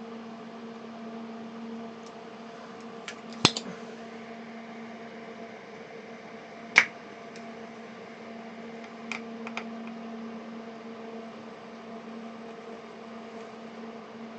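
Steady low hum of workbench electrical equipment, with a few sharp clicks and taps of tools being handled on a power-supply circuit board, the loudest about seven seconds in.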